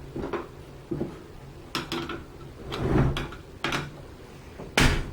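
Irregular metal clicks and knocks from a Beretta AR-70 rifle being taken apart, as a takedown pin is pushed in and parts are handled, with a louder knock near the end.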